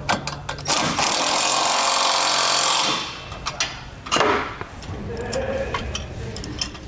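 Cordless impact driver hammering for about two seconds as it runs a 15 mm bolt down tight, with a short second burst about a second later. Metal clicks and clinks of hand tools on the bolts follow.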